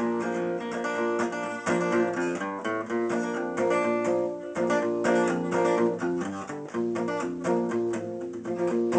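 Solo cutaway acoustic guitar playing chords in a steady rhythm, the instrumental opening of a song with no singing yet.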